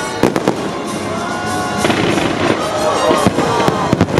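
Fireworks going off: repeated sharp bangs with crackling, over music with bending pitched notes.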